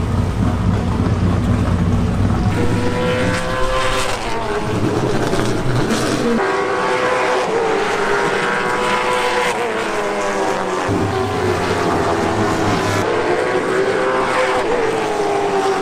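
NASCAR late model stock cars' V8 engines running laps on a short track, their pitch rising and falling as the cars accelerate and go past.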